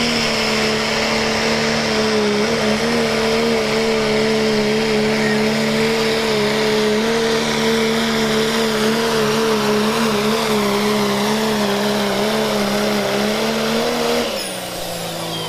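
Dodge Ram pulling truck's Cummins turbo-diesel engine held at high revs under full load as it drags the sled: a loud, steady drone that wavers slightly in pitch. About fourteen seconds in, the note drops as the throttle comes off.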